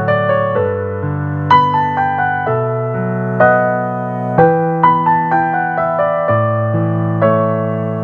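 Solo piano playing a gentle piece: a melody of struck, fading notes over held bass notes and chords.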